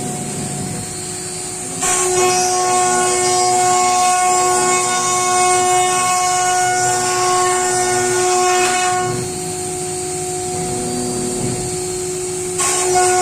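CNC router spindle whining steadily as it cuts wood, a stack of steady tones over a hiss. It gets louder about two seconds in, eases back about nine seconds in, and rises again near the end.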